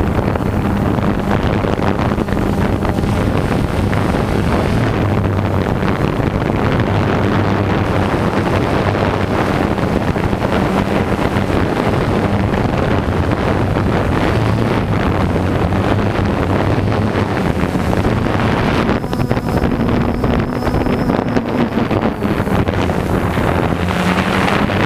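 Quadcopter drone's motors and propellers humming steadily, mixed with wind rushing over the drone's own microphone; the hum rises slightly in pitch for a few seconds near the end as the drone climbs.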